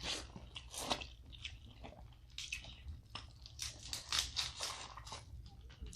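Close-miked eating of a seafood boil: a quiet, irregular run of short crunches and cracks, several a second, as snow crab legs are broken open and chewed.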